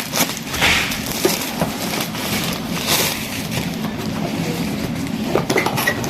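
Packaging being handled during an unboxing: rustling and crinkling, with scattered clicks and knocks.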